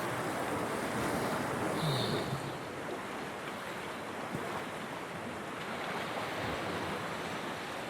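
Ocean surf washing against a rock jetty, a steady rushing noise, with wind on the microphone. A brief, slightly louder sound stands out about two seconds in.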